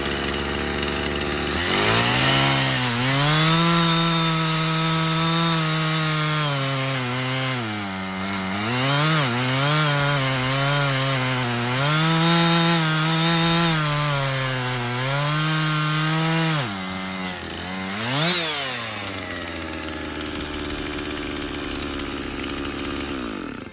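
Husqvarna chainsaw cutting through a sycamore log: revved up about two seconds in, it runs at high speed with its pitch sagging repeatedly under load, then drops back to idle, gets one short blip of the throttle, and winds down near the end.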